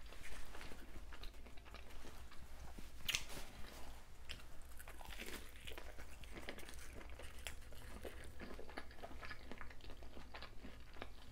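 Close-up chewing and crunching of a fried lobster tail with a crushed hot Cheetos crust: irregular wet crackles and bites, with one sharper crunch about three seconds in.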